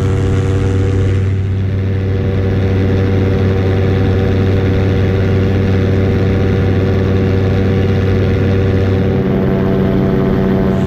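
Paramotor engine and propeller running steadily in flight, an even drone with a hiss of rushing air over it. Its lowest tone drops away about nine seconds in.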